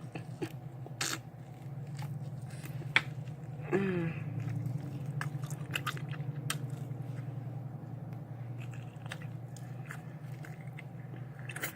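A person chewing food close to the microphone, with many wet mouth clicks and lip smacks over a steady low hum. A short hummed "mm" comes about four seconds in.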